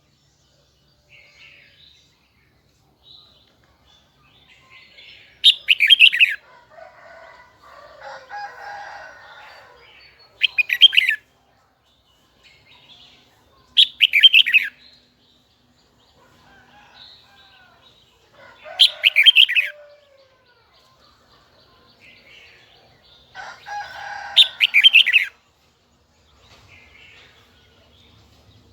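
Red-whiskered bulbul (chào mào) singing: five short, loud bursts of quick warbling song a few seconds apart, with softer twittering in between.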